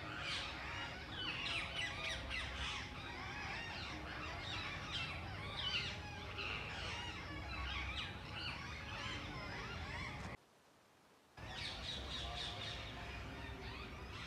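Many birds chirping and calling together in a dense, overlapping chorus. It drops out for about a second some ten seconds in, then resumes.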